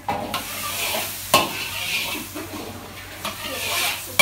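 Food sizzling in a hot wok while a metal ladle stirs and scrapes against it, with two sharp clanks of ladle on pan, one about a second in and a louder one at the end.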